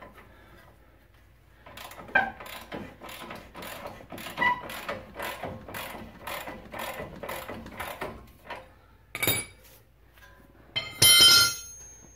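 Socket ratchet clicking in a steady run, about three clicks a second, as it loosens the 24 mm nut on a Ford Explorer's lower front strut bolt. A louder metallic clank near the end.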